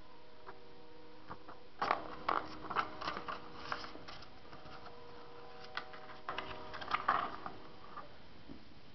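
Light clicks and taps from handling small objects, in two clusters of several quick strokes, over a faint steady tone.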